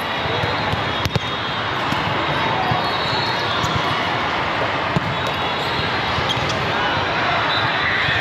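Indoor court game noise: a ball thudding against the floor and hands, over a steady din of players and spectators in a large hall, with sharp smacks about a second in and again around five seconds in.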